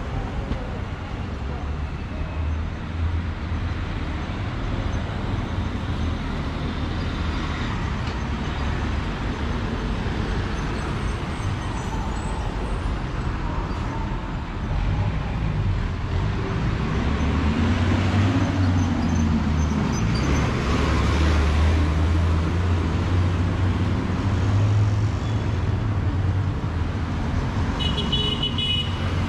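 Road traffic passing along a city street, a steady low rumble that grows louder in the second half as vehicles go by. A brief high-pitched toot sounds near the end.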